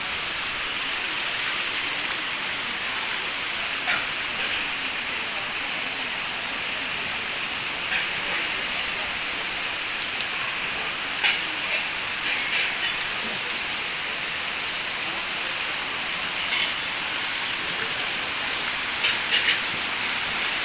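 Steady rushing hiss of waterfall water, with a few faint brief sounds over it.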